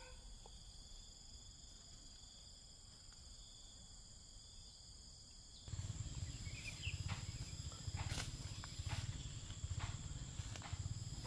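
Insects buzzing steadily in several high tones. About six seconds in the sound changes abruptly: a louder low rumble comes in under the insects, with scattered sharp knocks.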